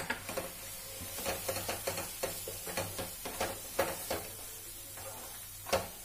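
Wooden spatula stirring and scraping thick masala around a nonstick frying pan, with repeated short knocks of the spatula against the pan and a light sizzle as the masala fries. Roasted gram flour (besan) is being worked into it. The sharpest knock comes near the end.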